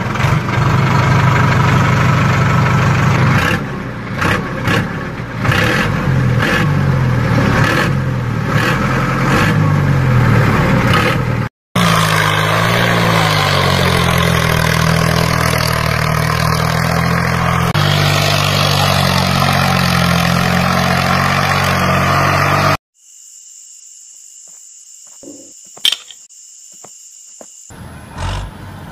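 An engine running, its pitch stepping up and down, in two long stretches broken by a short gap about eleven seconds in. At about twenty-three seconds it cuts off, leaving a much quieter high steady whine with a few clicks.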